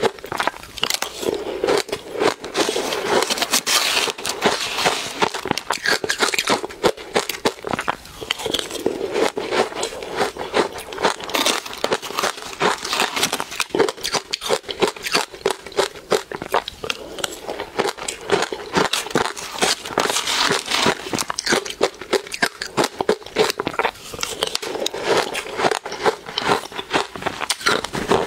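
Frozen ice dusted with matcha powder being bitten and chewed close to the microphone: a dense, continuous crunching and crackling.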